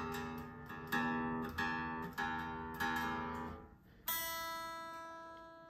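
Strings of an unplugged Epiphone Les Paul Special I P-90 electric guitar plucked one after another, a note about every half second, each ringing and decaying. About four seconds in, a single note, the E the tuner reads, is struck and left to ring and fade. The strings are being checked against a clip-on tuner to show that they hold their tuning.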